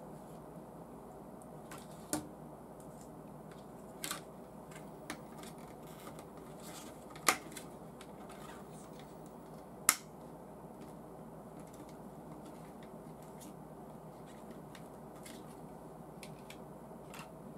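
Clear plastic parts of a model V8 engine kit clicking and snapping as the cylinder-head pieces are handled and pressed together: scattered light ticks with a few sharper clicks, the loudest about seven and ten seconds in.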